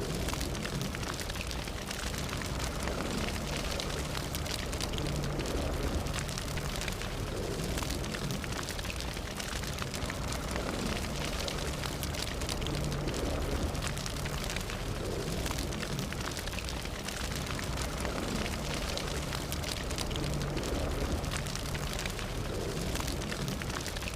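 Fire burning: a steady low rush of flames with frequent small crackles and pops throughout.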